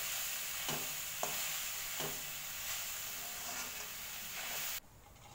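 Grated coconut sizzling in a metal wok as it is stirred, the stirring utensil scraping and clicking against the pan a few times. The sound cuts off abruptly a little before the end.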